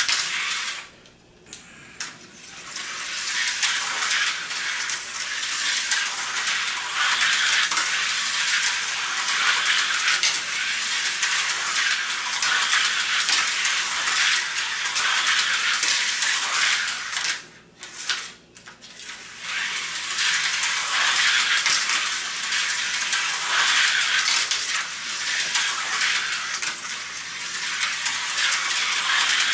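HO-scale Tyco slot cars from a 1984 set running around the plastic track, a steady high whirring rattle of small electric motors and pickups in the slot. It drops away briefly twice, about a second in and again about seventeen seconds in.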